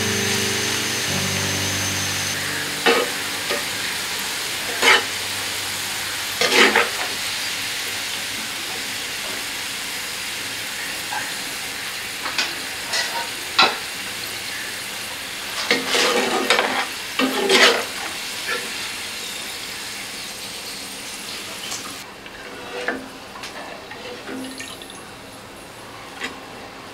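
Sliced onions deep-frying in hot oil: a steady sizzle that grows quieter as the onions turn brown. A perforated skimmer stirs them, scraping and tapping against the pan every few seconds, with a busier cluster of scrapes about two-thirds of the way in.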